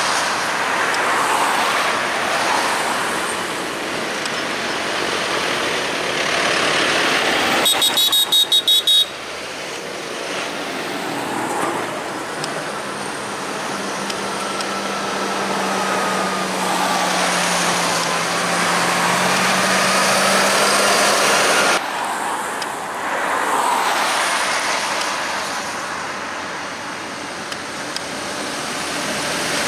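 A convoy of farm tractors drives past one after another, with steady diesel engine drone and tyre noise on the road. About eight seconds in, a horn sounds in a quick string of short toots.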